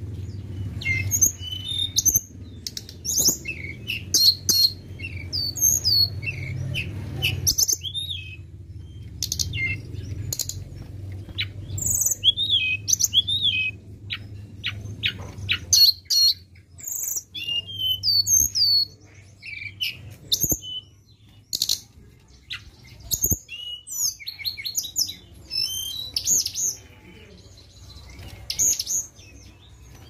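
Blue flycatcher (tledekan) singing: a fast, varied run of high chirps and sweeping, slurred whistles broken by short pauses, over a low steady hum that fades about halfway through.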